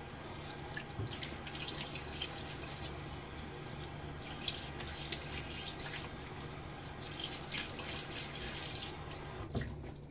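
Water running from a bathroom sink tap, with small splashes as the face is rinsed; the water stops near the end.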